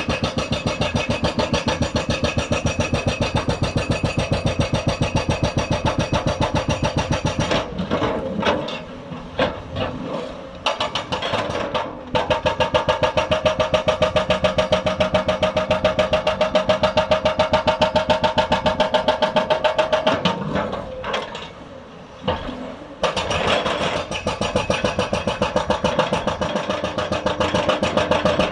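Hydraulic breaker on a Hyundai 290 excavator hammering rock in a fast, steady rattle of blows. It stops twice for a few seconds while the excavator's diesel engine keeps running, then starts hammering again.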